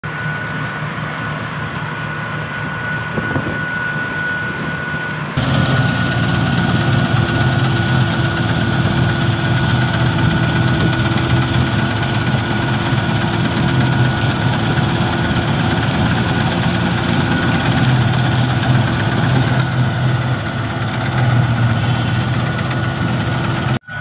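Combine harvester running as it cuts standing wheat: a steady engine drone with the whir of its machinery and a thin steady whine. The sound grows louder and fuller about five seconds in and then holds steady.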